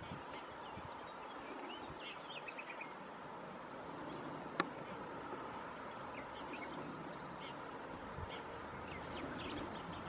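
Faint, scattered bird chirps over a steady outdoor hiss, including a quick series of short descending notes about two seconds in. A single sharp click sounds about halfway through.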